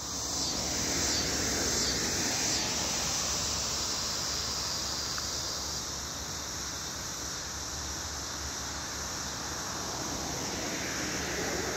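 Steady rushing of gusty wind ahead of an approaching severe thunderstorm, with a high, even insect buzz in the background.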